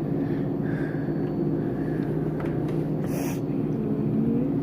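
Steady low mechanical hum made of several fixed tones, with a brief hiss about three seconds in.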